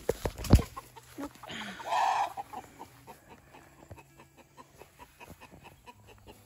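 A loose hen being chased through long grass: sharp thumps and rustling as a grab is made for her, the loudest sounds, then a short squawk from the hen about two seconds in, followed by only faint scattered sounds.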